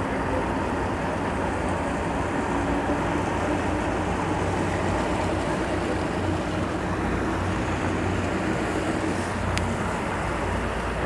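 Outboard boat motors idling as boats pass at slow speed: a steady low engine drone.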